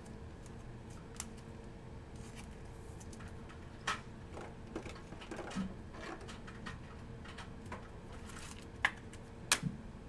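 Trading cards and a small cardboard card box being handled: soft rustles and scattered light clicks, the two sharpest near the end, over a faint steady hum.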